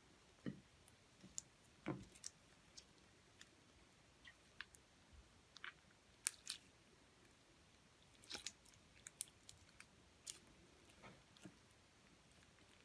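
Clear slime being squished and worked by hand: soft, irregular clicks and small pops, about fifteen in all, with a short cluster about eight seconds in.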